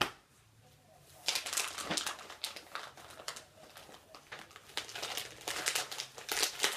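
Crinkling and rustling of packaging as a pack of socks is handled, starting about a second in.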